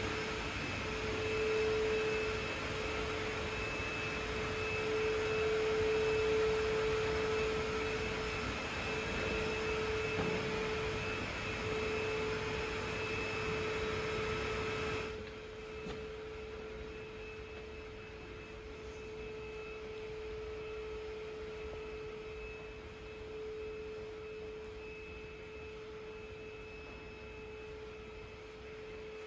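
A steady hum at one fixed pitch that swells and fades a little, over a hiss of room noise that drops away suddenly about halfway through.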